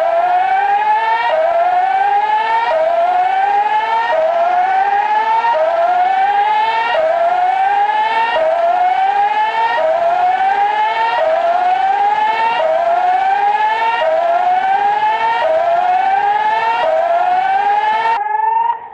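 Emergency alert siren sounding a tsunami evacuation warning: a loud wailing tone that rises in pitch over and over, one sweep about every second and a half, then cuts off suddenly near the end.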